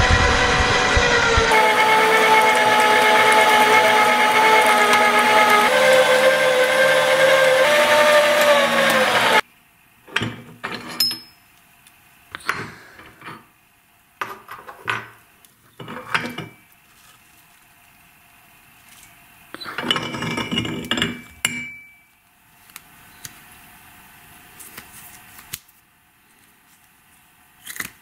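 Electric meat grinder motor running with a steady whir, its pitch stepping down slightly partway through, then stopping abruptly about a third of the way in. After that come several short, scattered handling noises: clicks and rustles.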